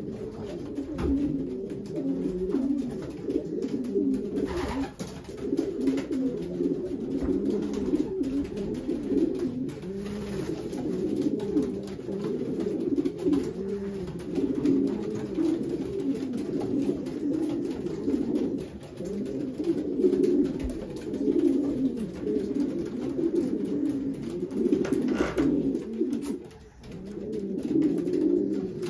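Many racing pigeons cooing at once: a dense, continuous chorus of low, overlapping coos with no gaps.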